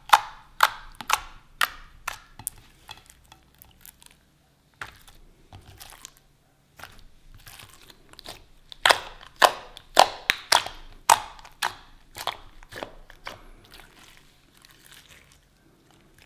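Clear glue slime squeezed and pressed under fingertips, giving a quick run of sharp clicks and pops. The clicks come thick at first, thin out, and come loudest and densest again from about nine to thirteen seconds in.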